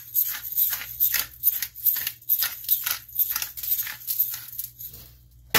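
Pepper dispenser worked in quick, even strokes, about three a second, sprinkling pepper over raw pork ribs; the strokes stop about five seconds in.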